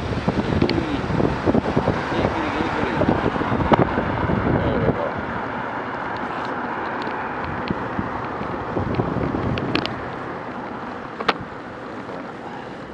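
Wind rushing over the microphone of a moving camera, with road and traffic noise and a few sharp clicks. The heavy low rumble drops off about five seconds in.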